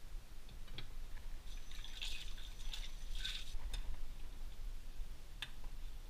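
Kitchen water sounds: liquid dripping and splashing in short bursts, with a few light clicks.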